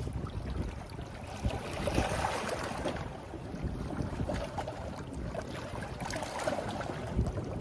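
Wind rumbling on the microphone over water noise at the shore, with a few faint knocks.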